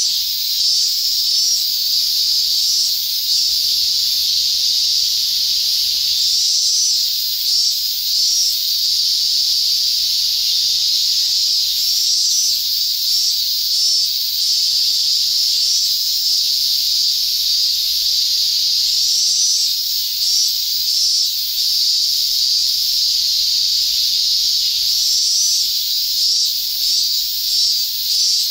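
Steady, loud, high-pitched insect drone.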